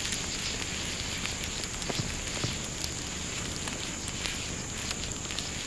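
Open fire under a grill crackling: a steady hiss dotted with many small, irregular pops.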